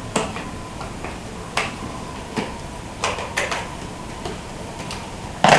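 Hard plastic parts of a cordless stick vacuum being handled and fitted together: a series of short clicks and knocks, a couple close together about three seconds in, and the loudest one near the end.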